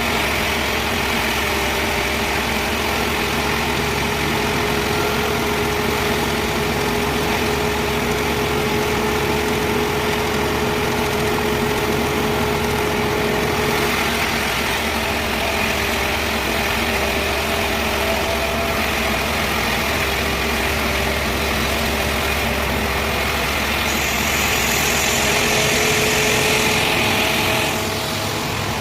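Sawmill machinery running steadily, its engine note shifting a little in pitch, with a brighter hissing cut sound for a few seconds near the end.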